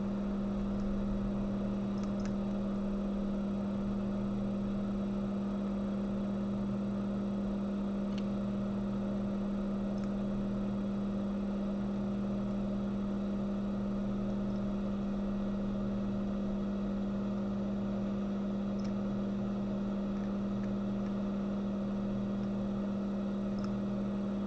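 Steady low hum with a strong unchanging tone, like a bench fan or motor running, with a few faint small ticks.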